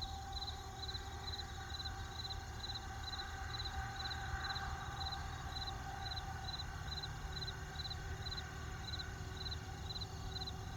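Cricket chirping steadily at about two chirps a second, over a steady low rumble and faint held tones.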